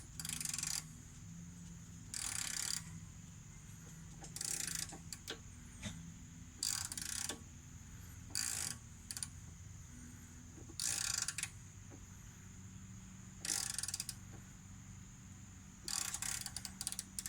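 Hand ratchet wrench clicking in short runs, about eight in all, one every two seconds or so, as the handle is swung back between slow strokes while tightening the rack bolts snug.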